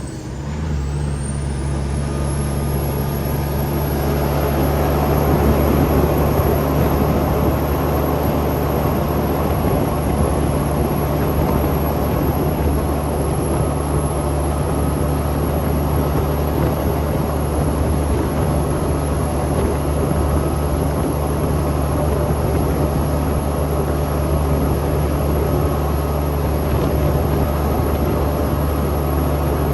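Cummins X15 inline-six diesel engine of a Kenworth T800 truck running steadily under a heavy load, a deep drone that builds over the first few seconds and then holds. A thin high whine rises over the first two seconds and then stays level.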